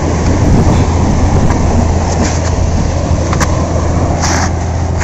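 A steady low rumble under a constant hiss, with a couple of brief sharp noises near the end.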